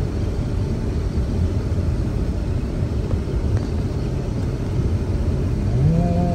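A steady low rumble. Near the end, a short pitched sound rises and holds for about a second.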